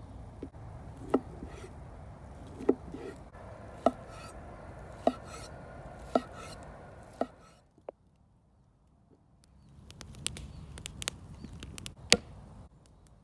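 Knife chopping food: single strokes about once a second, each with a short ring. After a brief pause comes a run of quicker, lighter cuts ending in one hard stroke.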